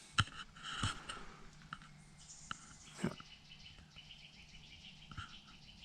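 Quiet background with a few faint, sharp clicks and scattered faint short chirps.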